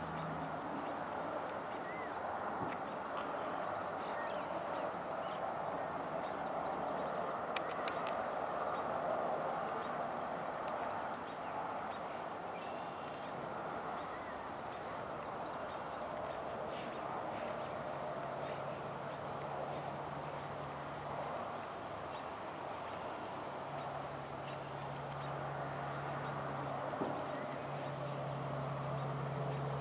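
Crickets chirping in a steady, even, high pulse. A faint low hum joins about 18 seconds in.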